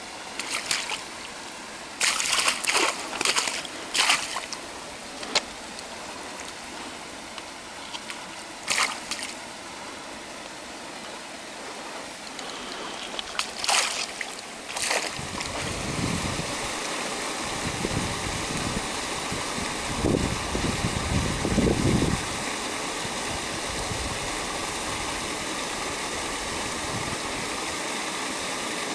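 Rainbow trout thrashing in a landing net at the water's surface: a cluster of splashes a couple of seconds in, then single splashes later. In the second half there is a steady rushing noise with a faint hum and a few low rumbles.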